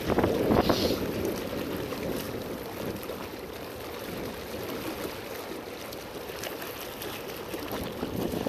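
Water lapping and sloshing: a steady noisy wash, louder for about a second near the start.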